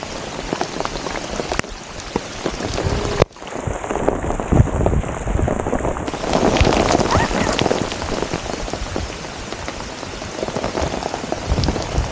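Downpour of rain striking the river's surface: a dense steady hiss made of countless small drop splashes. It briefly cuts out about three seconds in, then carries on.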